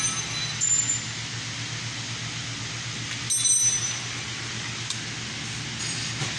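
Metal clinking: a few short ringing clinks, at the start, about a second in and again around three and a half seconds, over a steady low hum.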